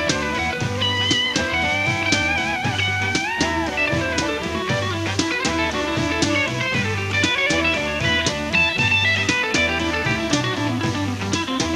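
A live band playing a song: electric guitar over a drum kit, with a steady beat of drum and cymbal hits. The guitar bends one note upward about three seconds in.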